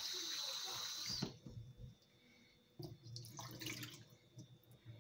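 Kitchen tap running into a sink, then shut off about a second in, followed by a few quieter knocks as a pan is rinsed.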